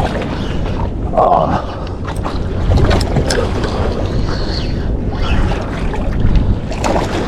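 Wind buffeting the microphone with a heavy, uneven low rumble, and scattered sharp clicks and knocks of handling.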